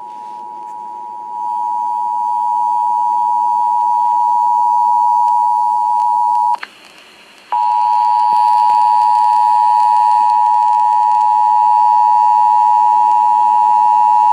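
Emergency Alert System two-tone attention signal broadcast over FM radio: a loud, steady pair of tones just under 1 kHz, the 853 and 960 Hz pair sounded together, marking the start of a Required Monthly Test. It swells over the first second or so, cuts out for about a second around the middle, then resumes.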